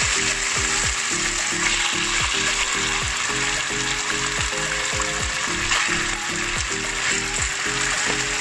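Marinated pork cubes sizzling in hot oil in a nonstick wok: a steady, dense frying hiss, the meat freshly added to the preheated oil. Background music with a steady beat plays underneath.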